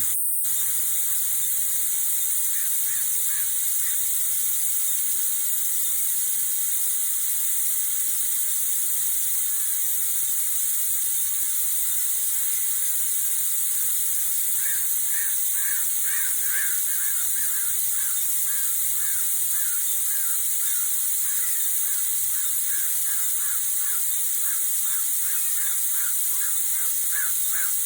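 Steady hiss of propane escaping from the open bleeder valve of a 1-gallon refillable propane cylinder as it is filled from a larger tank; venting through the bleeder lets the cylinder take on fuel. Faint short chirping calls repeat in the background from about halfway through.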